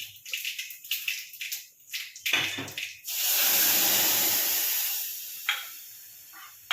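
Tempering of hot oil with mustard seeds and dry red chilli (dal vaghar) meeting the boiled dal: a sudden loud sizzle about three seconds in that fades away over the next few seconds. Before it come light crackles and clinks of the pan and spoon.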